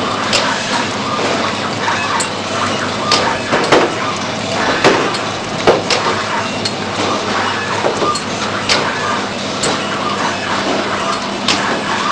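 Powder sachet packaging machine running: a steady mechanical clatter with irregular sharp clicks and knocks over it.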